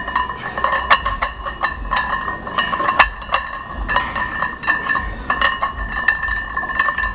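Metal clinking and clicking of gym weights, irregular and repeated, over a steady high-pitched tone.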